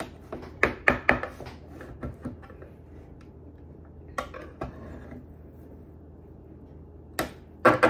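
Knife clinking and scraping against a metal baking pan as it cuts through a log of dough, in scattered sharp knocks: a cluster at the start, a pair about four seconds in, and more near the end.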